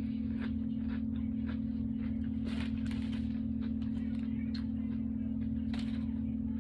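Someone chewing a toasted sub sandwich close to the microphone: irregular soft crunches and mouth clicks, a few stronger ones about two and a half to three seconds in. A steady low hum runs underneath.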